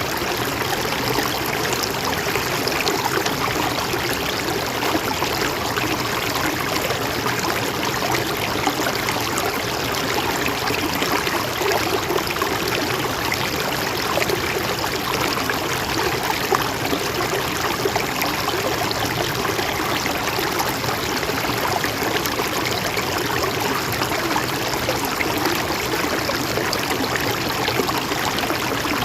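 Mountain stream flowing steadily over rocks, a constant rushing and trickling of water.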